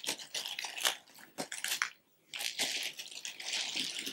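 Packaging crinkling and rustling in irregular bursts as a pair of leggings is pulled out of it by hand, with a brief pause about two seconds in.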